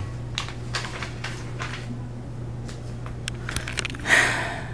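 Handling rustles and soft scattered clicks from a handheld camera being moved, over a steady low hum, with a louder rustle about four seconds in.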